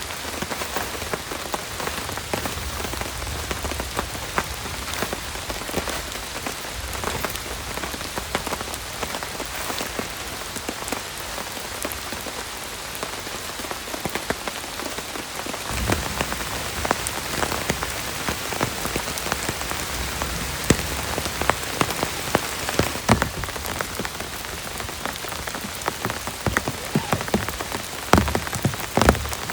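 Heavy rain pouring steadily, with many individual drops striking hard surfaces close by. About halfway through, a low rumble comes in and the drop hits grow louder, peaking near the end.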